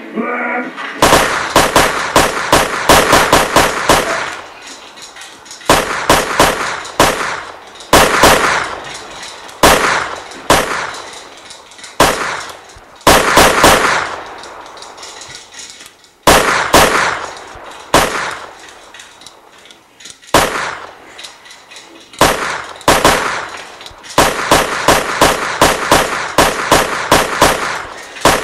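Gunfire sound effects: rapid volleys of shots fired in quick succession, starting about a second in and coming in bursts of one to a few seconds with short pauses between them.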